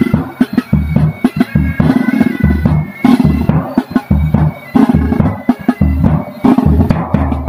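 Military pipe band playing on the march: bagpipes carry the melody over steady drones, while a bass drum and tenor drums beat time with sharp, frequent strokes.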